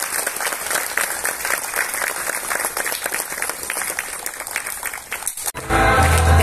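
A group of people applauding, a dense patter of hand claps. It breaks off abruptly about five and a half seconds in, and music with a steady bass begins.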